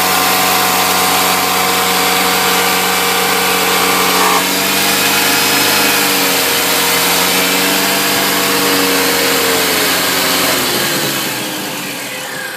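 Supercharged four-cylinder engine of an R53 Mini Cooper S held at steady revs, with a higher steady tone over it that cuts off sharply about four seconds in; near the end the revs fall away and the sound drops. The extra tone is the odd noise the owner hears only with the A/C or heater on at about 2700–3000 rpm.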